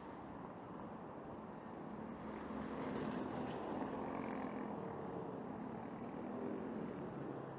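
City street traffic: cars passing close at an intersection, with engine hum that swells about two seconds in and eases near the end.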